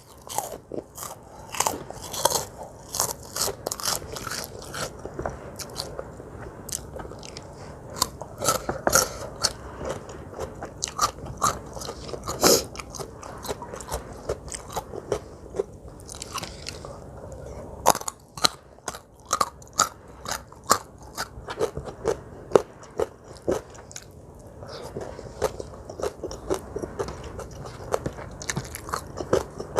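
Close-miked eating: a person chewing crunchy food with many crisp, irregular bites and crunches, a few louder ones standing out, around 12 seconds in and from about 18 to 23 seconds.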